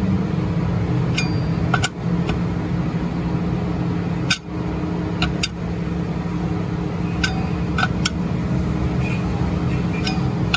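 Steady machine hum with a low pitched drone, broken by scattered sharp metallic clicks and ticks, with two brief dips in level about two and four and a half seconds in.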